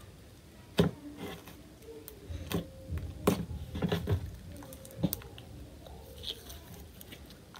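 Clear glue slime streaked with red food coloring being folded, poked and stretched by hand, giving soft sticky squelches and a series of sharp clicks and pops as trapped air bursts, most of them in the first five seconds.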